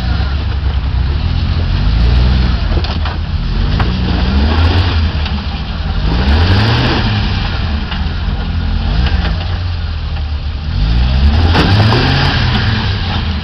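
Jeep Wrangler YJ's engine revving up and falling back again and again as it crawls up over rocks. A few knocks can be heard from the tires and underside striking rock.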